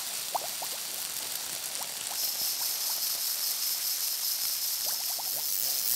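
Water bubbling and trickling: short scattered bubble chirps over a hiss. About two seconds in, a steady high-pitched tone joins it.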